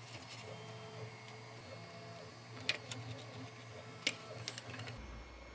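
Faint whine of a running FDM 3D printer's stepper motors, its pitch stepping up and down as the print head moves. Two light clicks about two and a half and four seconds in, from the printed plastic parts being handled.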